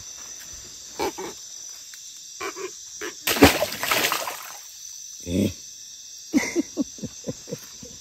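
Night insects and crickets chirping steadily; about three and a half seconds in, something hits the river water with a loud splash that sprays droplets up. A few short knocks follow near the end.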